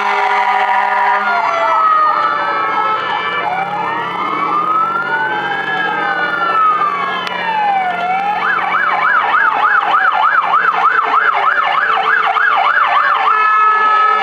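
Several fire engine sirens sounding at once as a column of fire trucks passes: overlapping slow rising and falling wails, then a fast yelp of about three cycles a second from roughly eight seconds in.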